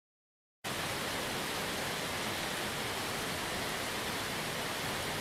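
Rain sound effect: a steady, even hiss of falling rain that cuts in suddenly out of silence about half a second in.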